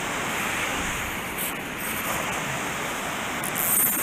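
Steady rushing of water pouring over a dam spillway, an even whoosh with no break. Shortly before the end a brief, higher scratchy rustle rises over it.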